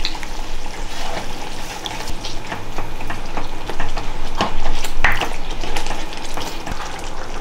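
Black spatula stirring a thick tomato-onion gravy with green peas in a non-stick kadhai, the gravy sizzling as it simmers. A couple of sharper knocks of the spatula against the pan come about four and a half and five seconds in.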